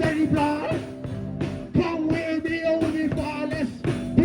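Live rock jam: a voice sings and raps over the band's instruments, with a steady beat.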